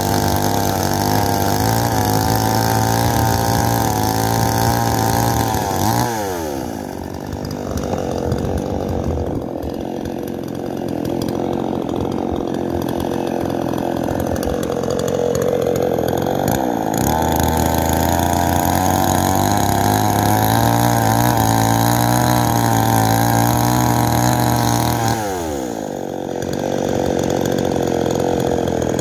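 Gasoline chainsaw cutting firewood logs at full throttle, then dropping to a steady idle about six seconds in. It revs back up and cuts again from about seventeen seconds, falls to idle a few seconds before the end and revs up once more.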